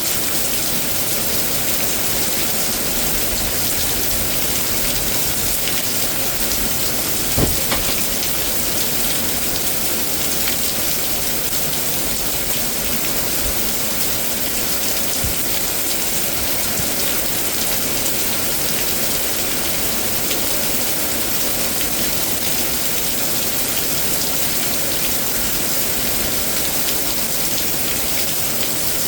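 Heavy rain of a severe thunderstorm, a steady dense hiss of rain on surfaces, with a couple of brief sharp knocks about seven seconds in.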